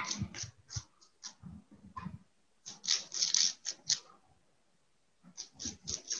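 A paintbrush stroking and dabbing paint onto bubble wrap: short scratchy strokes in quick groups with pauses between them.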